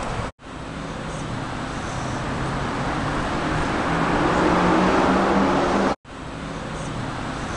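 Street traffic: cars driving past on a city road, with one vehicle's engine growing louder and peaking about two-thirds of the way through. The sound drops out briefly twice at edit cuts.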